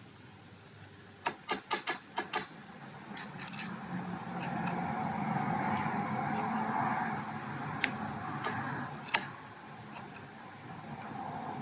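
Small metal lock parts (pins, springs, plug) clicking and rattling as a pin-tumbler lock is taken apart by hand. A quick run of sharp clicks comes about a second in, then a longer stretch of steady rustling with a few more single clicks.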